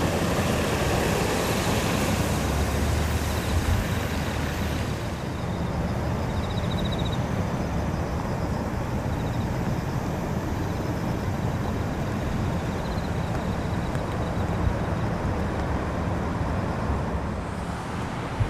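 Steady rushing storm noise from Typhoon Faxai's winds and rain mixed with road traffic rumble, heavier and hissier for the first few seconds.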